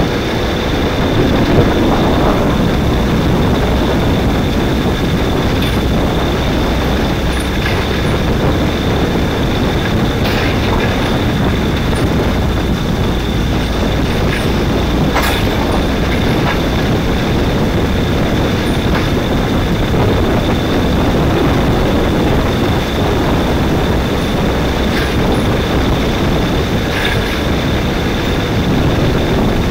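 Steady onboard din of a Ninja kart racing on a wet track: its engine at speed mixed with wind on the microphone and tyre spray, with a thin steady high whine over it and a few scattered clicks.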